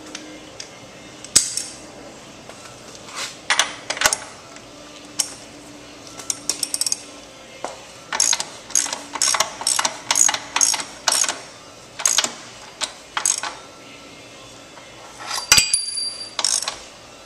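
Socket wrench tightening a motorcycle's rear axle nut: a string of sharp metallic ratchet clicks, coming quickest in a steady run through the middle. Near the end a metal-on-metal clink rings briefly.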